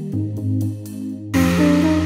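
Electronic background music with long held notes, turning louder and fuller shortly after a second in.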